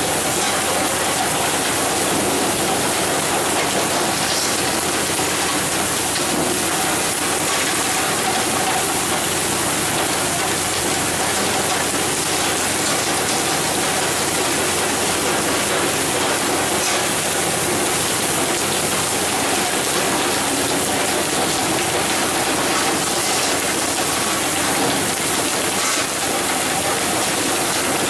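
Steady rush of water spraying and splashing against a pole-and-line tuna boat's hull, with a faint steady machine hum underneath.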